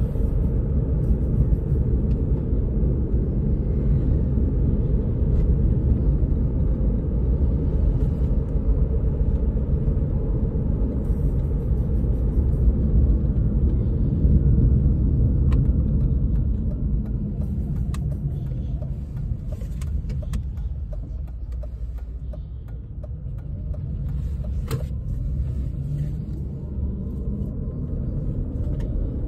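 Road and tyre rumble inside the cabin of an electric Tata Nano on the move, with no engine note; it eases off for a few seconds in the second half, then builds again.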